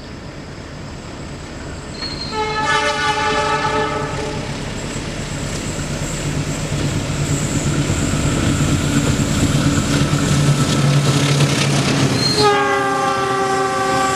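Diesel locomotive sounding its multi-tone horn twice as it approaches and passes: a blast of about two seconds a couple of seconds in, and another that starts near the end. Between the blasts the engine and wheel noise grows steadily louder as the train draws near.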